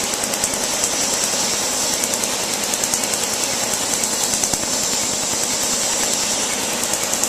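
Tattoo-removal laser firing into the skin, a fast, even run of sharp snaps, over the steady hiss of air blowing from a hose aimed at the treated spot.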